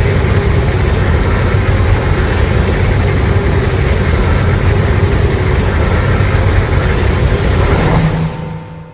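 Edited Godzilla roar sound effect: one long, loud, rasping roar with a deep rumble beneath it. It breaks off about eight seconds in and fades out.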